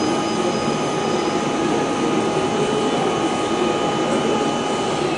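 Colliery winding engine (shaft hoist) running: a steady mechanical roar with several high, steady whining tones. The whine cuts out right at the end as the machine begins to wind down.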